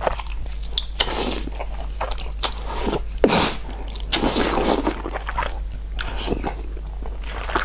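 A person biting and chewing crunchy food close to the microphone, in irregular bursts, the loudest a little past three seconds in. A low steady hum runs underneath.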